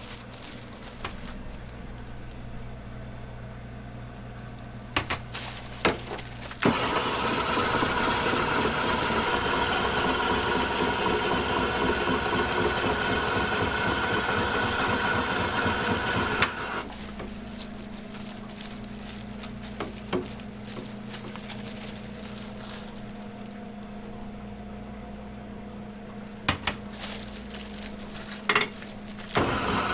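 Electric shaved-ice (snowflake bingsu) machine running for about ten seconds as it shaves ice down into a melon half; it starts suddenly several seconds in and cuts off suddenly. Before and after it there is a steady low hum with a few sharp taps.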